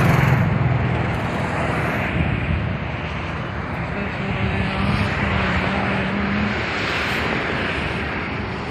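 Steady rushing noise of shallow floodwater running across a desert wadi, mixed with wind on the microphone. A low steady hum runs under it, changing pitch about halfway through.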